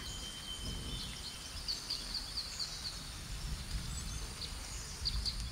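Quiet rainforest ambience: a low steady hiss with a thin, steady high tone through the first half and a quick run of short, high bird chirps in the middle.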